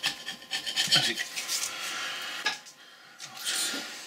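Paint being scraped off the edge of a Boxford lathe's apron casting with a flat hand tool, in quick back-and-forth strokes that stop briefly near the end before a little more rubbing.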